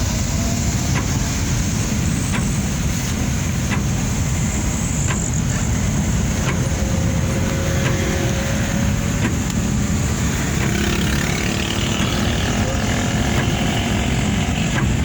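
Heavy log truck's engine running steadily under load, a continuous low rumble with faint whining tones above it.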